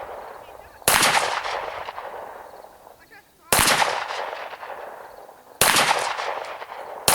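Gunshots at a shooting range: four single shots about two seconds apart, the last right at the end, each followed by a long echo that dies away.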